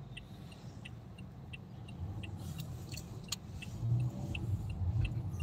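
Low road and engine rumble inside a moving car's cabin, growing a little louder in the second half, with a faint light tick repeating about three times a second.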